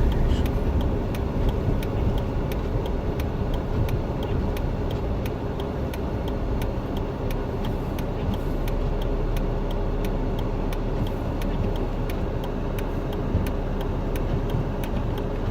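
Cabin noise of a Jeep Wrangler driving on a snowy road: steady engine and tyre rumble, with a light, even ticking of about three clicks a second running through it.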